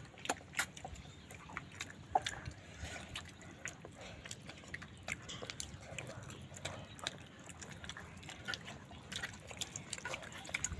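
A person eating chicken leg and dal curry close to the microphone: wet chewing and lip-smacking, with many short sharp smacks and clicks scattered irregularly throughout.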